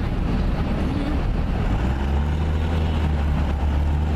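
Car engine and road noise heard from inside a moving car: a continuous low rumble, with a steady engine hum coming up about two seconds in.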